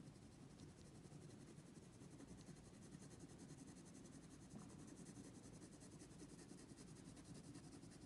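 Faint scratching of a mechanical pencil's lead shading on drawing paper, very quiet over a low steady room hum.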